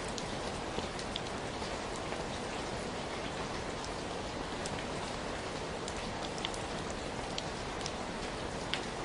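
Steady rain falling, with a continuous hiss and scattered individual drops ticking sharply close by.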